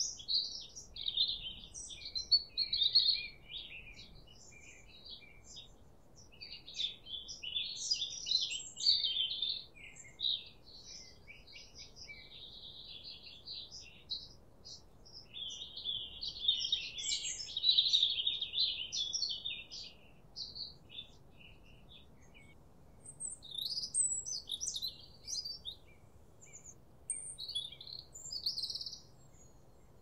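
Several songbirds singing and chirping in overlapping high-pitched phrases, in bouts with short lulls between them.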